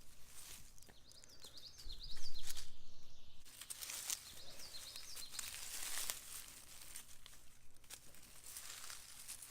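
Hands rustling and scraping through soil and potato plants while digging up potatoes, with high chirps from birds in the background. There is a louder low rumble about two seconds in.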